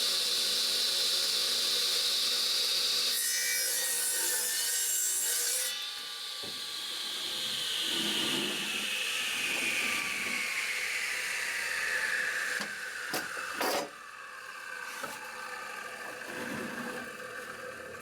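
Sears Craftsman radial arm saw running with a steady high whine, cutting through a wooden board for about three seconds. The motor is then switched off and the blade winds down with a whine falling in pitch, followed by a few sharp knocks.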